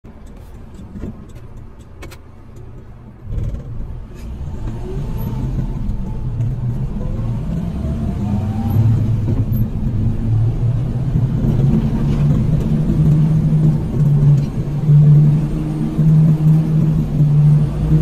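A motor vehicle's engine heard from on board, quiet at first, picking up about three seconds in and rising in pitch as the vehicle gathers speed, then running steadily and louder.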